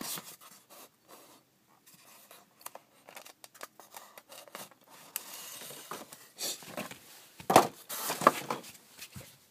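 Styrofoam packing insert being handled and pulled apart: scattered small clicks and scratchy rubbing, with the loudest foam scrapes about three quarters of the way through as the foam top is lifted off.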